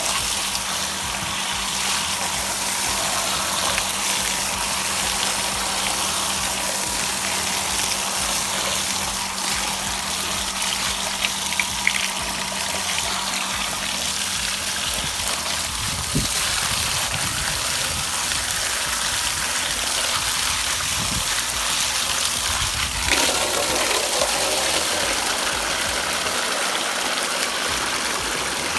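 Steady running water gushing as muddy toy cars are washed under it.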